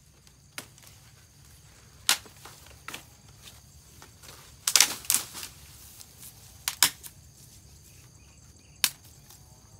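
Dry sticks snapping and cracking as they are broken for firewood: sharp single cracks, a quick run of several about five seconds in, another pair about two seconds later and a last crack near the end.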